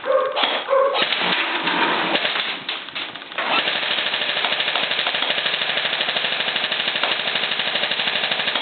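Echo E90 electric airsoft gun firing on full automatic. A long, steady burst of rapid, evenly spaced shots begins about three and a half seconds in and runs on, after some irregular handling noise.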